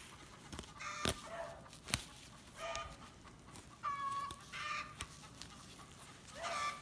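Domestic chickens clucking and squawking in short calls, about one a second, with a couple of sharp clicks about one and two seconds in.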